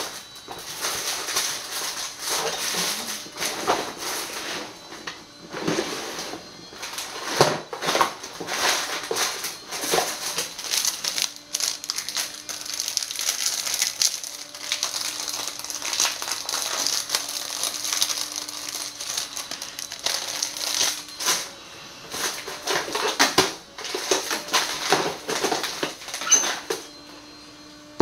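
Rapid, irregular clicks, rattles and crinkling from containers, lids and packaging being handled while oils are mixed. A faint steady hum comes and goes behind them.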